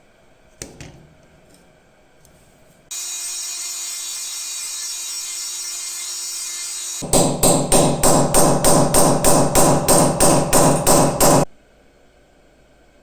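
Workshop tool work on the knife: a single knock, then a steady hiss for about four seconds, then about fifteen quick regular hammer blows, roughly three a second, which stop abruptly.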